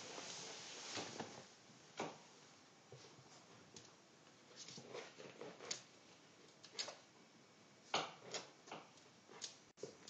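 Pomeranian puppy rolling and squirming on a carpet: soft, irregular rustles, brushing and light thumps of fur and paws against the pile.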